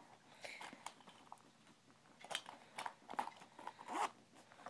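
Items being handled and moved around in a handbag: faint rustling with a few sharp clicks and knocks, a little louder past the middle.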